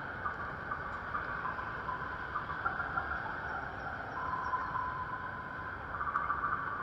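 Steady city street ambience at a busy intersection: traffic and crowd hubbub, with faint short high tones coming and going, and a longer steady tone about four seconds in.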